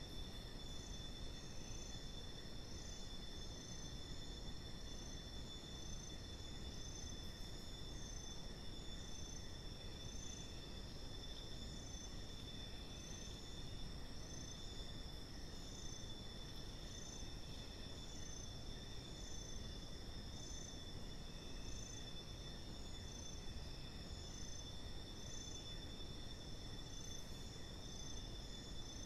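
Night forest insect chorus: several insects trilling steadily on different high pitches, one of them pulsing in an even rhythm, over a low, even background hiss.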